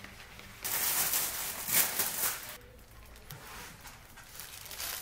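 Rustling handling noise during hair-dye application, loudest for about two seconds starting under a second in, then quieter handling sounds.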